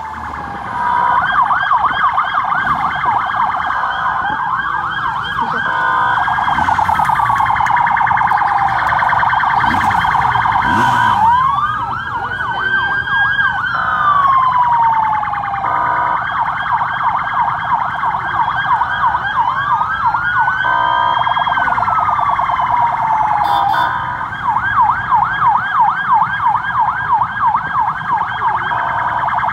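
Emergency-vehicle sirens sounding continuously, switching back and forth between a fast yelp of about three sweeps a second and a slower wail that rises and then falls over a few seconds.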